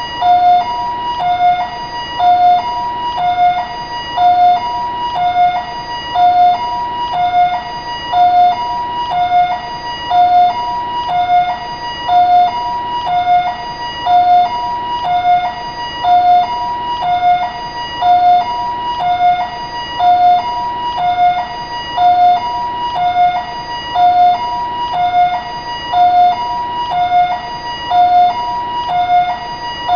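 Taiwanese ambulance siren sounding a steady two-tone hi-lo, alternating between a lower and a higher tone about once a second.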